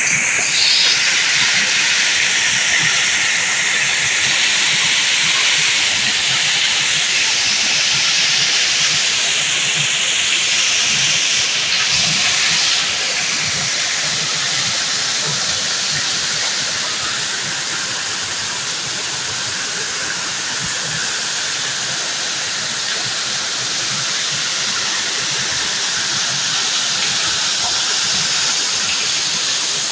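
Waterfall: a steady rush of falling water, easing slightly about halfway through.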